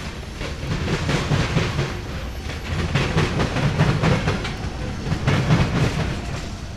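Freight train cars rolling past, their wheels clacking over the rail joints in a clatter that swells and eases about every second and a half.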